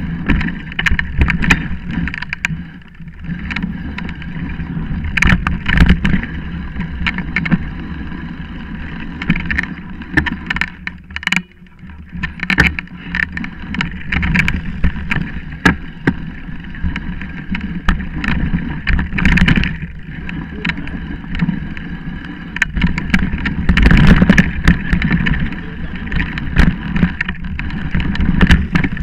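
Mountain bike riding fast down a rough dirt trail, heard from a camera mounted on the bike: constant rattling and knocking over bumps, tyre noise and wind on the microphone, with two brief smoother, quieter moments.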